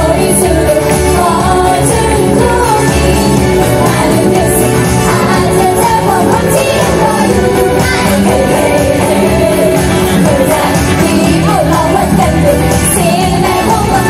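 Pop song with a female idol group singing over it, loud and steady.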